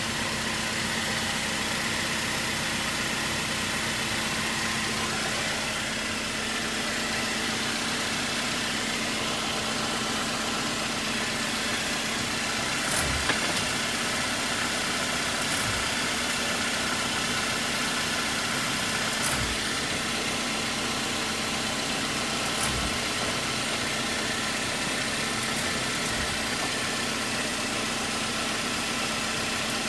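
2021 Jeep Wrangler Unlimited Rubicon running with a steady hum and an even grinding noise, broken by about five short knocks at uneven intervals. This is the grinding noise the owner is recording.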